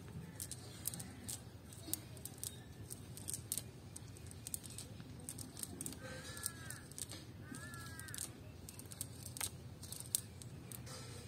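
Crisp rustling and clicking as a wet cast net is handled and picked through on grass. A bird calls twice, about six and eight seconds in.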